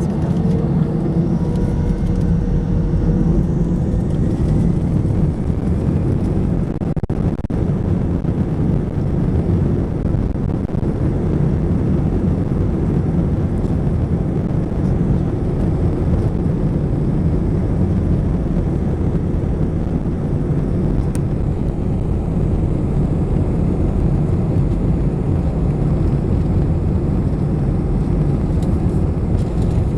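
Cabin noise inside an Airbus A321-211: a steady low rumble from its CFM56 engines and the airframe, with faint gliding tones in the first few seconds.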